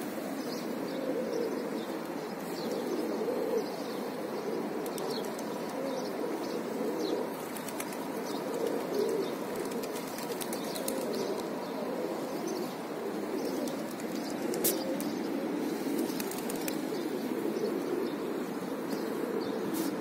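A flock of feral rock pigeons cooing in a low, continuous murmur, with scattered wing flaps as birds take off and land.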